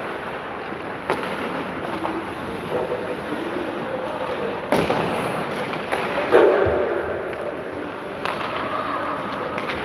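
Indoor ice hockey rink ambience: a steady hiss of arena noise with four sharp knocks or clacks and some voices calling out.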